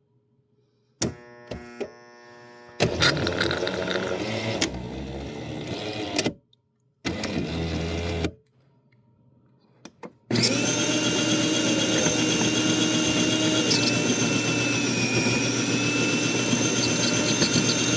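Jura J5 automatic coffee machine's bean grinder motor starting and stopping in short runs, then running steadily for about eight seconds with a high whine over it. The grinder is said not to be grinding the beans properly.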